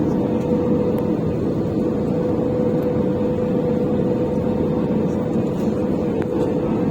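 Airbus A320 airliner cabin noise in flight: a steady rush of engines and airflow with a constant hum near 500 Hz, heard at low altitude on the approach.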